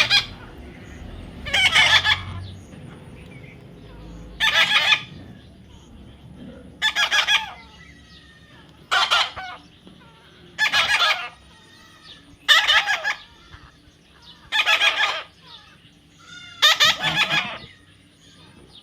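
Young parrot giving a loud, harsh call over and over, one call about every two seconds, eight or nine times.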